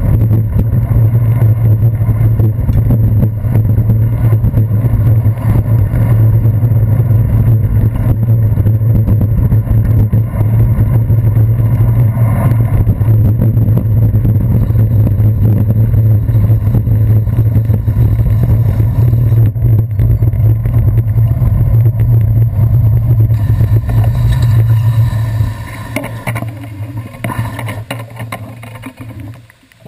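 Steady low rumble of wind and riding vibration on a handlebar-mounted GoPro Hero 2 as a bicycle rolls over wet city pavement, with traffic noise mixed in. The rumble drops away sharply about 25 seconds in as the bike slows.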